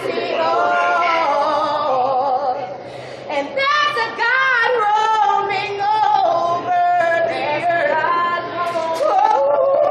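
Women singing a gospel song, wordless stretches of long, wavering held notes.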